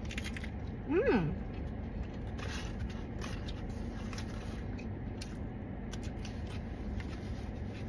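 Paper sandwich wrapper rustling and crinkling in scattered light crackles. About a second in, a short vocal sound slides up and back down in pitch.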